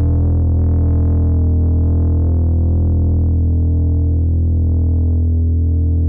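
Electric bass played through a Zoom B1X Four multi-effects pedal on its 'FatTube' overdrive patch, a low note left to ring and sustain steadily.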